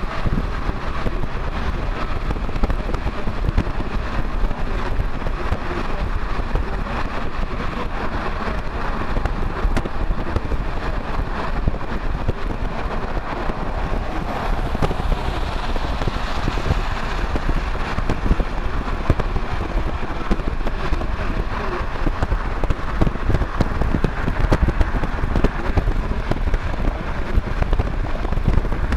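Steady road noise heard from inside a moving car: tyres and wind rushing evenly, with no distinct knocks or tones.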